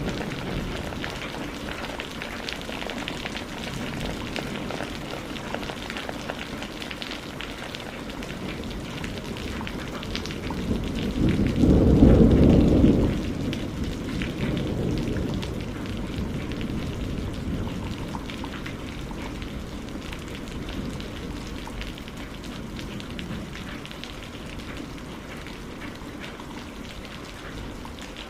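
Steady rain falling, with a low rumble of thunder that swells about eleven seconds in, peaks briefly and fades over a few seconds.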